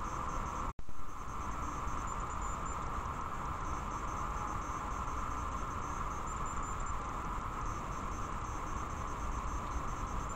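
Steady electronic hiss from a trail camera's built-in microphone, with a constant hum-like band in the middle of the range. It cuts out for an instant under a second in, where one recording ends and the next begins.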